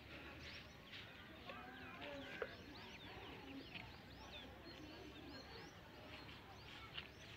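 Faint, busy chatter of many small birds: quick rising and falling chirps overlapping throughout. A single sharp click comes about two and a half seconds in.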